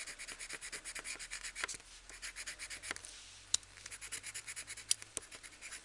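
Coloured pencil shading on card in quick back-and-forth scratchy strokes, about nine a second, with a few sharper ticks of the pencil near the middle and end.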